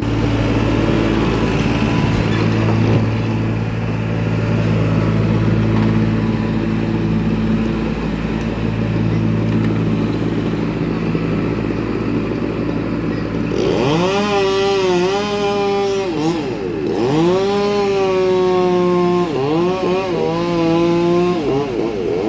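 A small engine running at a steady pitch, then, about two-thirds of the way in, a chainsaw revved hard four times in quick succession, its pitch shooting up and sagging slightly on each rev.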